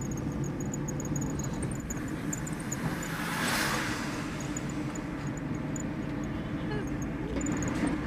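Steady engine and tyre noise heard inside a moving car, with a brief whoosh of an oncoming vehicle passing about three and a half seconds in.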